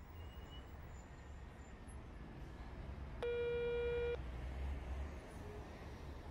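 Telephone ringback tone: a single steady beep about a second long, starting a little over three seconds in.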